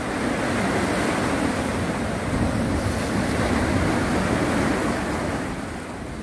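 Choppy sea waves washing steadily, with wind rumbling on the microphone; the wash eases off a little near the end.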